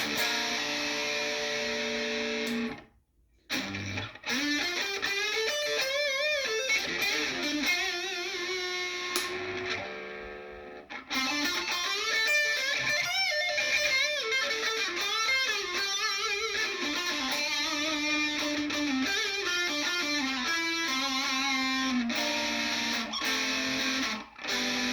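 Epiphone SG Modern Figured electric guitar played through an amplifier: held chords at first, then, after a short stop about three seconds in, lead lines with bent notes and vibrato, pausing briefly again around ten seconds in.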